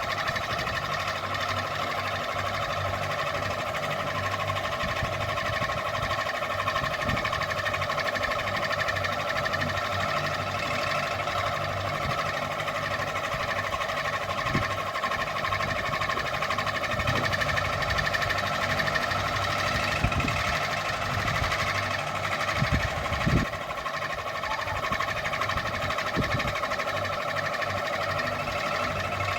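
Ceiling fan running, a steady whirring hum with several constant tones over a low drone, and a few soft low knocks now and then.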